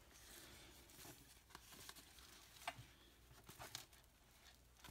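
Faint rustling of a folded dress shirt and its packaging being handled, with a few light ticks scattered through.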